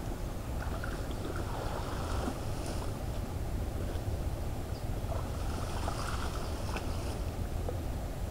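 Shallow water sloshing and splashing as a man wades and works a bamboo pole in it, swelling twice, with a steady wind rumble on the microphone underneath.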